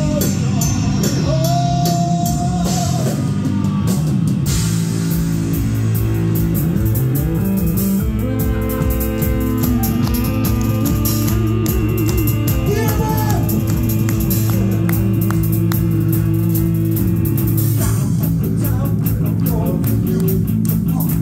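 Heavy metal band playing live and loud: distorted electric guitar holding bent, wavering lead notes over bass guitar and a drum kit with constant cymbal hits.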